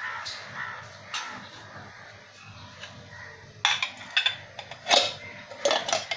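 Sharp clinks and clatters of a steel mixer-grinder jar and bowls being handled on a plate. A quick cluster of knocks comes in the second half.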